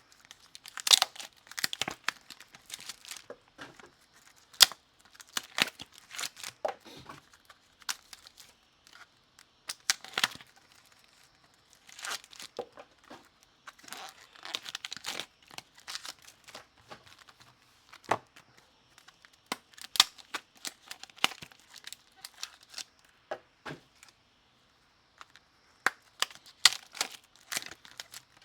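Trading card pack wrappers being torn open and crinkled by hand in irregular crackling bursts, with short pauses between packs.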